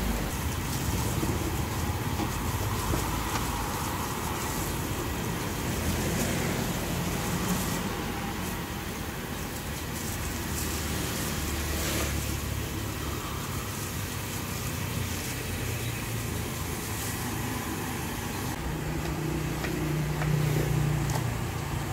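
Steady outdoor background with a low, shifting traffic rumble and a few light clicks and knocks.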